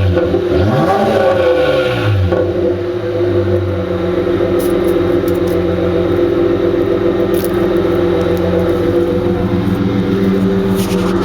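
2002 Nissan Maxima SE's 3.5-litre V6 through its exhaust: one quick throttle blip that rises and falls in the first couple of seconds, then the engine settles into a steady idle.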